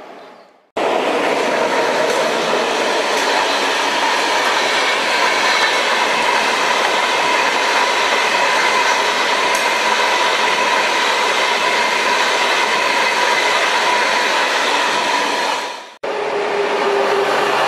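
A passenger train passing close by: a steady rush of wheels on rail with a faint, steady high ringing tone, starting abruptly just under a second in. About sixteen seconds in it breaks off sharply and a freight train of wagons loaded with rail passes, with a lower steady tone.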